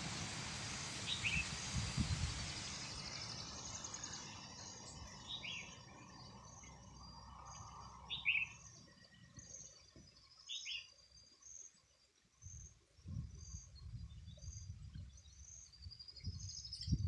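Red-whiskered bulbuls giving short, faint calls every two or three seconds. Behind them runs a faint high pulsing about once a second, and a rushing noise fades out over the first few seconds.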